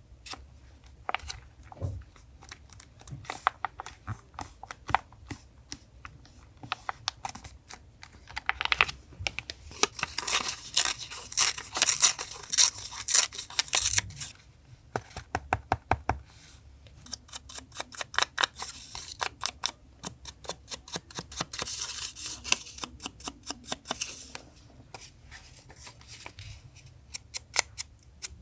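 Paper being cut with scissors and torn for a journal collage: a run of quick, crisp snips and clicks, with two busier stretches of tearing and rustling, one in the middle and one later on.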